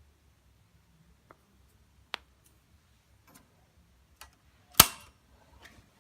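A handful of scattered light clicks and knocks, with one sharp, louder knock a little before the end.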